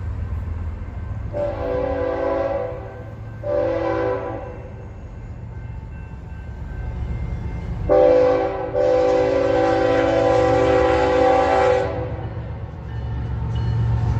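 Locomotive multi-note air horn sounding four blasts: a medium blast and a short one, a pause of a few seconds, then a short blast and a long one of about three seconds. A low rumble from the train runs underneath.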